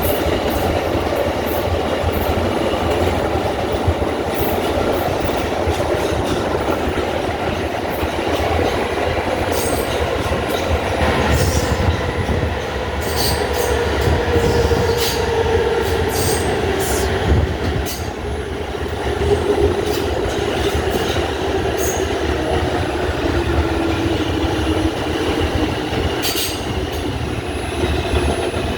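An R142 subway train running, heard from inside the car: a steady rumble of the wheels on the rails with scattered clicks over the rail joints. Through the second half a whine slowly falls in pitch.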